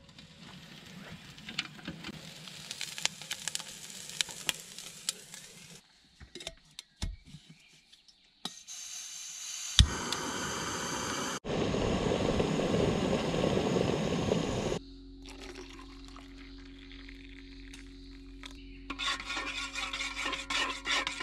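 Jetboil gas camping stove: clicks and handling of the stove and its cup, then the burner running with a steady hiss for several seconds in the middle, broken by edits, with more small clicks and rattles near the end.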